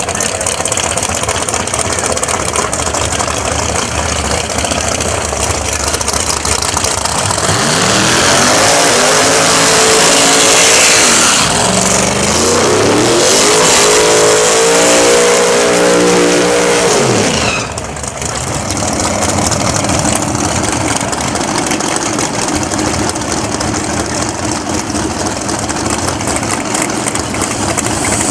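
Drag-racing cars running at full throttle on a grudge-race pass. The engine pitch climbs from about 8 seconds in, breaks and climbs again around 12 seconds as if shifting a gear, and cuts off about 17 seconds in. Loud engine noise runs underneath the whole time.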